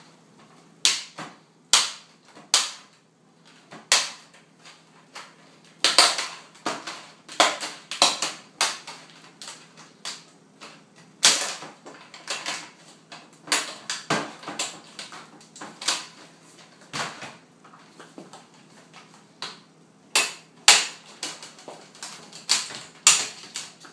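Plastic screen bezel of a Toshiba Satellite Pro C650 laptop being prised off by hand, its retaining clips snapping loose in a long run of sharp, irregular clicks and cracks that come in clusters.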